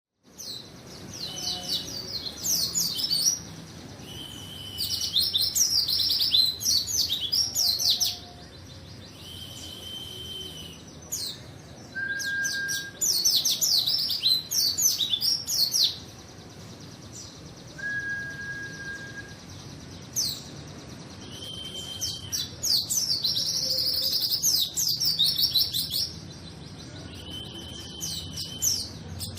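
A white-eye (pleci) singing hard. Bursts of rapid, high, twittering chirps, each lasting two to four seconds, alternate with single steady whistled notes.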